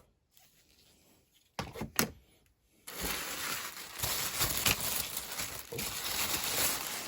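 Packing paper being unwrapped and crinkled by hand, with a couple of light handling knocks about two seconds in; the steady crinkling starts about three seconds in and keeps going.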